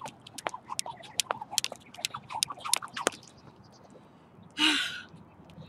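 A jump rope slapping an asphalt path in a steady rhythm, about two to three strikes a second, stopping just after three seconds in. Near the end, one loud, hard gasp of breath from the winded jumper.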